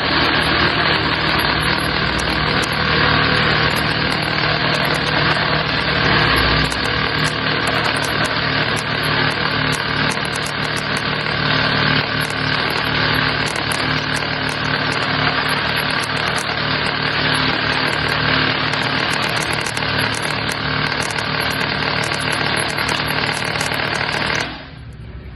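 Airsoft electric gun with a Warhead motor firing continuously on full auto, a steady mechanical buzz that cuts off suddenly about a second before the end.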